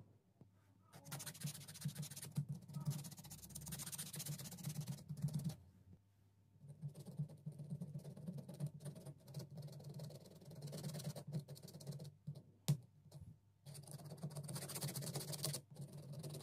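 A small pointed metal tool scraping and picking dried residue out of the recessed strap area of a rubber slide sandal's footbed, in three bouts of rapid scratching with short pauses between them. There is one sharp click about two-thirds of the way through.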